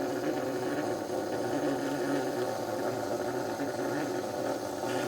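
Bialetti Mukka Express stovetop cappuccino maker spraying on the heat: a steady buzzing hiss as pressurised coffee sprays up through the valve into the milk near the end of the brew.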